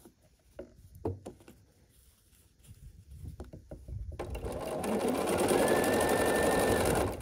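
Bernina sewing machine stitching a chain-pieced seam through a pair of fabric squares. It starts about four seconds in, speeds up, runs steadily for about three seconds and stops near the end. Before it starts there are soft taps and rustles of the fabric being lined up under the foot.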